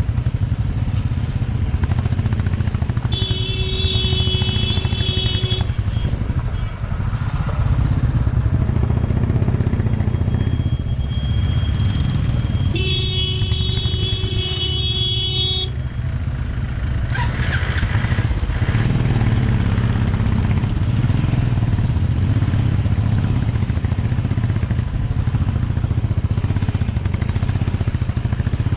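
Single-cylinder Royal Enfield Bullet motorcycle engine running steadily, heard from the rider's seat. A vehicle horn sounds twice, each blast about two and a half seconds long: once a few seconds in and again about halfway through.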